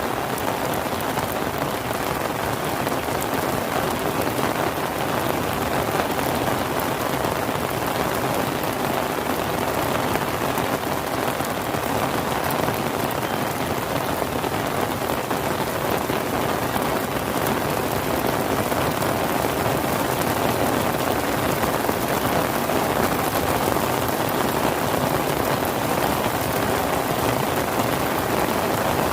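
Steady rain falling on a surface: an even, unbroken hiss with the fine patter of many drops, keeping the same level throughout.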